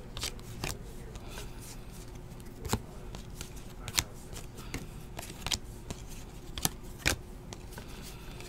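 2017-18 Donruss basketball cards being flipped through by hand, each card slid off the front of the stack to the back: a string of irregular soft flicks and snaps, a few a second, with sharper ones about three, four and seven seconds in.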